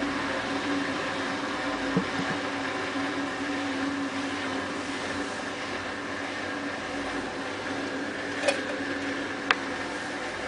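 Hotpoint Ultima WT960 washing machine running with its drum turning, trying to balance a lumpy load of dog bedding and towels for the spin: a steady motor hum with a few sharp clicks, one about two seconds in and two near the end.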